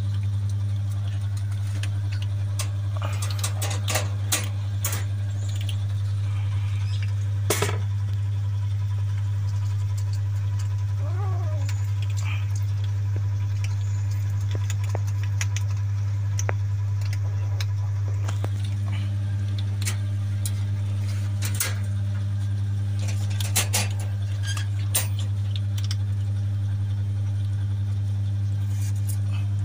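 A steady low hum throughout, with scattered clicks and crunches from kittens eating dry kibble, and one short kitten mew about 11 seconds in.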